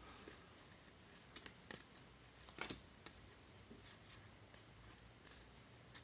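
Faint ticks and rustles of baseball cards being slid off a handful one at a time and flicked onto the next, card stock brushing against card stock.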